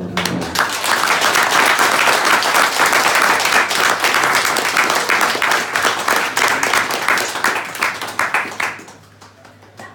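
A small group applauding, with hands clapping close by. Loud, dense clapping that thins to a few separate claps and dies away about nine seconds in.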